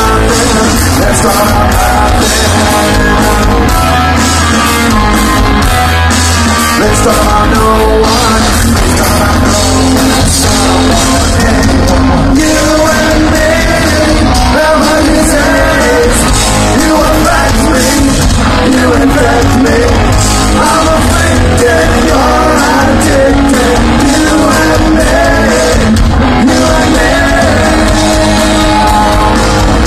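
Punk rock band playing live through a festival PA, very loud, with distorted guitars, bass and drums and a lead singer, heard from within the crowd.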